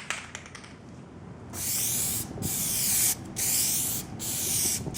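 Aerosol spray can of Plasti Dip rubber coating hissing as a coat is sprayed on, in about four bursts of roughly a second each with short breaks between them, starting about a second and a half in.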